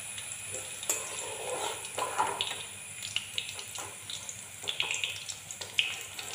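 Hot oil sizzling in a metal kadhai while fried cauliflower florets are scooped out with a metal spoon, which scrapes and clicks against the pan many times.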